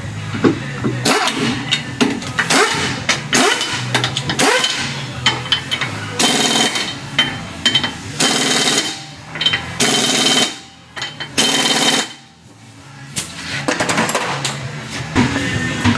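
Pneumatic impact wrench hammering the lug nuts onto a car's rear steel wheel, in about seven short bursts of a second or so with brief pauses between. It stops about twelve seconds in, once the wheel is fastened back on after the strut replacement.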